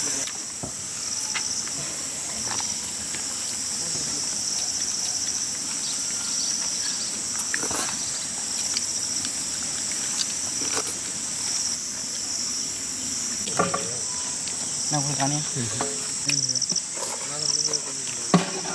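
Insects chirring steadily in a high-pitched drone, with faint voices and a few sharp clicks in the last few seconds.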